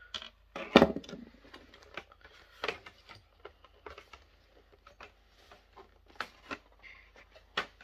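Plastic satellite TV box being handled and turned over: scattered clicks and knocks of hard plastic, the loudest about a second in.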